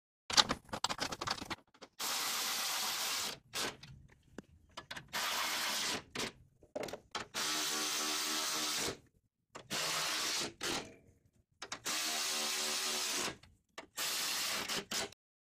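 Milwaukee M12 Fuel 3/8-inch cordless ratchet spinning bolts in about six short bursts of a second or so each, with a steady motor whine in each burst. A few sharp metallic clicks from handling parts come about half a second in and are the loudest sound.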